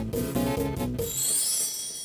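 A Khmer cha-cha rhythm from a mobile arranger-keyboard app plays with bass and chords, then breaks off about halfway through. A high rising swish follows and fades out.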